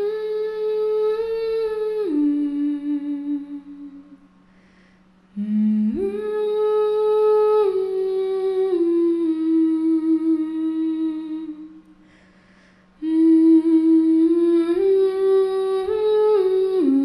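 A single voice humming a slow, wordless melody. It holds long notes that step down in pitch, in three phrases with a short pause after about four seconds and another after about twelve, over a faint steady low drone.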